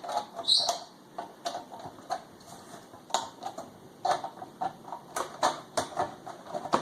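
Screwdriver prying at a car radio's case, popping up the tabs of its bottom cover: scattered sharp clicks and taps, with a brief high squeak about half a second in.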